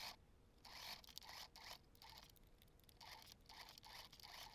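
Scissors making a run of short, faint snips, clipping small notches into bias tape so it will bend around a curve.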